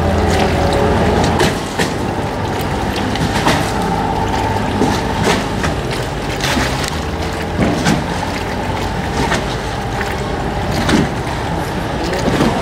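Motorboat engines running on a busy canal, with water splashing and lapping at the boat.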